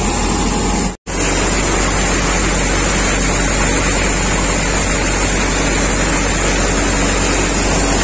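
Tractor-driven paddy thresher running steadily at working speed: a loud, even mechanical whir from the threshing drum and sieves over a low engine hum. The sound cuts out for an instant about a second in.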